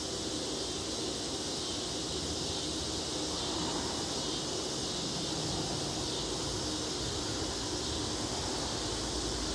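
Steady outdoor background noise: an even hiss with a low hum beneath it and no distinct events.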